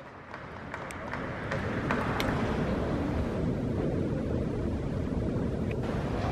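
Steady low rumbling ambience of a large sports hall, fading in over the first two seconds, with a couple of faint clicks.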